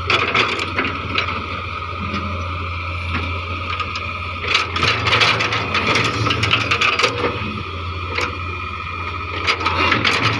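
Hitachi EX100 excavator at work: the diesel engine running steadily with a hydraulic whine, overlaid by repeated clanks and scraping, busiest around the middle and near the end.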